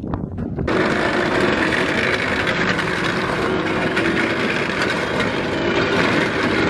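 Vehicle engines running on the street, a loud, steady rumble with a constant hum. It cuts in abruptly about a second in.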